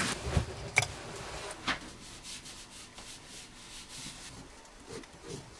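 Sheets of paper rustling and tapping on a desk, then a pen scratching across paper in soft, repeated short strokes.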